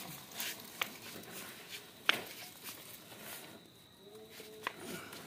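Baby walker with small plastic wheels rolling over a concrete floor: scattered clicks and light rattles from the wheels and frame, the sharpest a little after two seconds in. A short, faint pitched sound follows about four seconds in.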